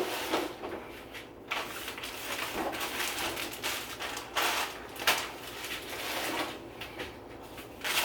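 Groceries being put into a refrigerator: a fridge drawer sliding, with short rustles and knocks as packages are handled.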